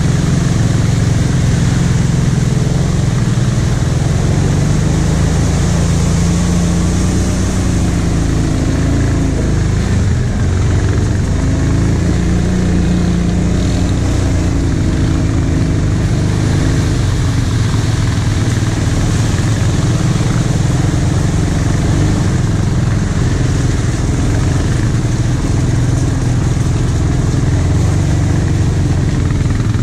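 Kawasaki Brute Force 750 ATV's V-twin engine running steadily at part throttle, its pitch rising and falling a little as the throttle is worked.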